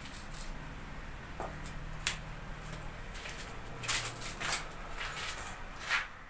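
A few scattered light knocks and clicks over a low, steady background hum.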